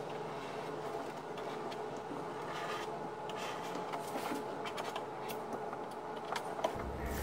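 Putty knife scraping and smoothing a thickened-epoxy fillet along the plywood joint at the base of a centerboard trunk, a few faint scrapes over a steady hum. A low rumble comes in near the end.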